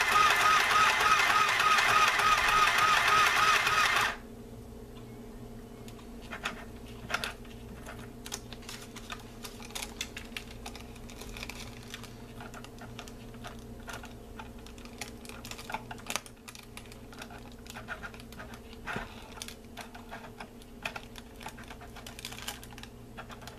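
Small battery-powered KPCB Tech portable sewing machine stitching through parchment paper: an even motor buzz with a fast needle rhythm that stops sharply about four seconds in. After that come scattered light clicks as the handwheel is worked and the paper is handled.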